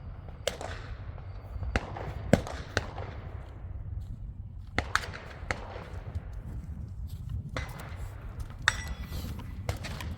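A string of gunshots fired during a shoot-while-moving drill, about ten sharp reports at an uneven pace, some in quick pairs.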